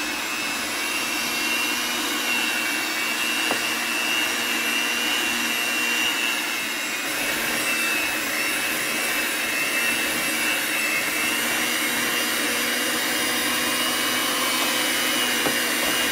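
Electric hand mixer running steadily with a high whine, its beaters churning creamed butter-and-sugar cookie dough as eggs are beaten in one at a time.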